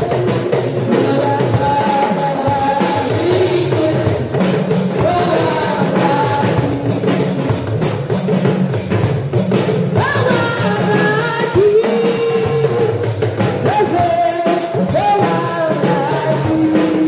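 Amplified solo singing through a microphone over live band accompaniment with a drum kit, a gospel song with long held, sliding notes.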